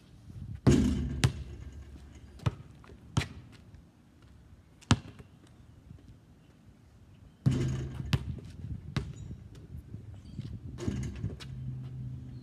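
A basketball bouncing on pavement: several separate, irregularly spaced bounces over the first five seconds. From about halfway on, a steady rushing noise with a low hum takes over.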